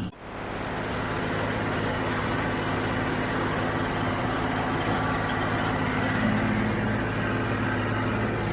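John Deere 5055D tractor running steadily at working speed, driving a John Deere 348 square baler with a pan kicker. The sound is even, with a steady low hum.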